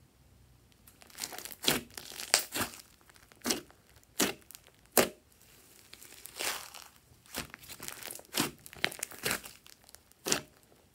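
Thick glossy slime mixed with small foam beads being squeezed and pressed by hand, giving irregular sticky crackles and pops, roughly one or two a second, starting about a second in.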